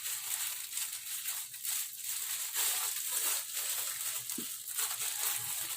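Packaging crinkling and crackling irregularly as it is unwrapped by hand.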